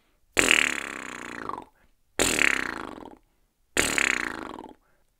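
Lips buzzing on their own, without a didgeridoo, three times. Each buzz starts sharply on a "P" and the mouth shapes an "ee-you" vowel, so a bright overtone sweeps down in pitch before the buzz stops. This is the practice for starting a didgeridoo drone with a P attack and the basic overtone sound.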